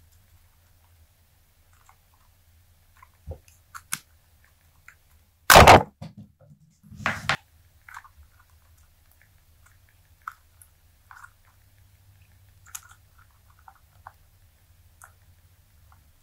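Silicone dice mold being flexed and peeled off a cured green resin die: scattered small crackles and clicks as the silicone pulls away from the resin, with two much louder sounds about five and a half and seven seconds in.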